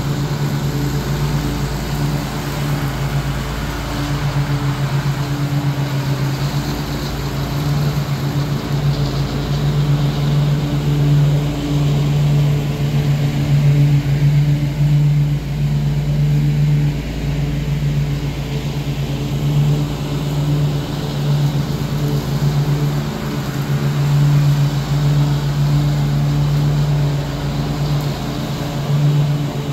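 Ariens Ikon Envy zero-turn riding mower's engine running steadily while mowing, a constant low engine drone that swells and dips slightly as the mower moves across the lawn.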